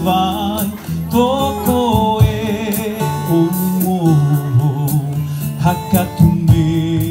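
A Polynesian song in the Marquesan language, sung into a microphone, with plucked-string accompaniment.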